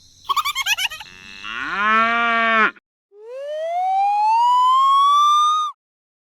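A string of edited sound effects. A short warbling sound comes first, then a moo-like tone that drops in pitch and holds for about a second. After a brief gap, a long whistle-like tone rises steadily and cuts off abruptly near the end.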